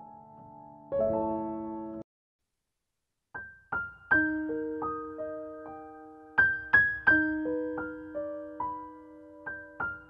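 Background piano music. The held chords cut off about two seconds in, and after a short silence a slow melody of single notes begins.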